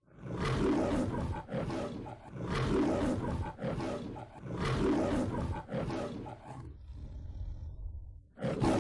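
Lion roaring, the MGM logo roar: three long roars about two seconds apart, each trailing into a shorter one, then one more short roar near the end.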